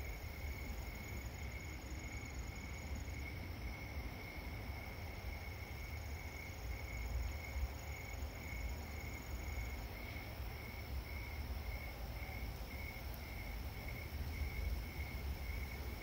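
Night ambience of insects chirping in a steady pulse, about two chirps a second, with higher steady trills above, over a low, steady rumble of distant city.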